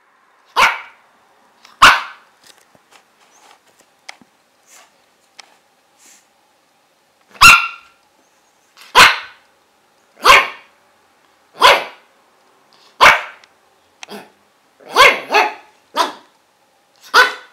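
Five-month-old pug puppy barking in short, single barks: two, then a pause of about five seconds, then about eight more, roughly one every second and a half.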